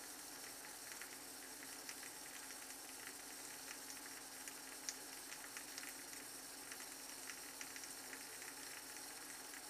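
Shavette razor with a pre-cut Shark half blade scraping through lathered neck stubble: a faint rasping hiss broken by irregular small crackles as whiskers are cut.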